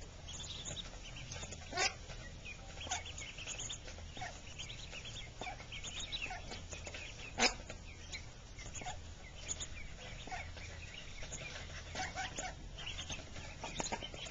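A brood of mallard ducklings peeping constantly, many short high cheeps overlapping, as they feed on pellets. A couple of sharp taps stand out, one about two seconds in and a louder one past the seven-second mark.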